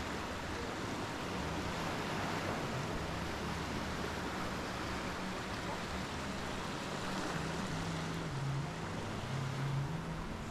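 Steady sea surf washing on a beach, with wind rumbling on the microphone.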